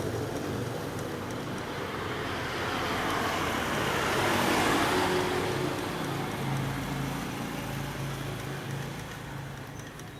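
A motor vehicle going past, its noise swelling to a peak about halfway through and then fading away.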